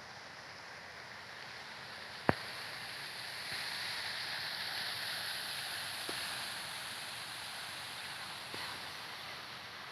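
Steady outdoor rushing noise that swells a little a few seconds in, with one sharp click about two seconds in and a few faint ticks after.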